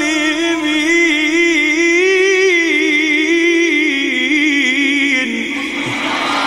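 A male reciter sings one long, ornamented note of melodic Quran recitation. His pitch wavers up and down and sinks toward the end. It stops about five seconds in, and an audience calls out in response.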